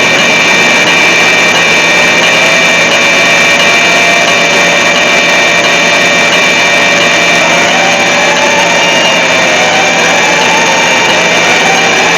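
Heavily distorted, very loud mock Emergency Alert System alarm: a continuous harsh wall of noise with several steady piercing tones layered in, and lower tones that slowly slide up and down.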